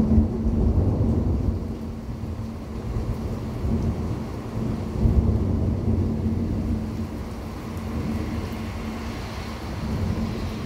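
Thunder from a severe thunderstorm: a sudden loud clap right at the start, then long rolling rumbles that swell again about five seconds in. A steady low hum runs underneath.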